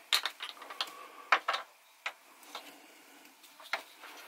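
Small clicks and taps of a starter cord being handled and wound onto the pulley of a model hit-and-miss engine, with several sharp clicks in the first second and a half, then sparser, fainter ticks.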